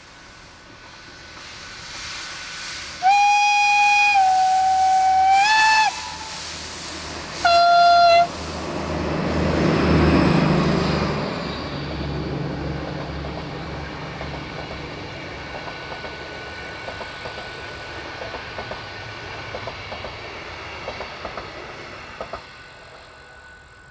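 Two train whistle blasts, a long one of about three seconds and a short one about seven seconds in, over an approaching Intercity train. The locomotive passes loudly about ten seconds in, then the coaches roll by with their wheels clicking over the rail joints, fading toward the end.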